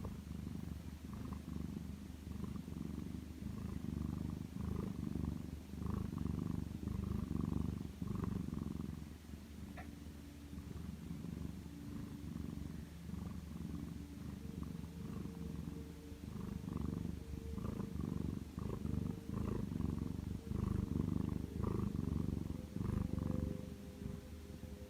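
Sleeping domestic cat purring close by, a low rumble that swells and fades every second or so; the owner wonders whether it is snoring.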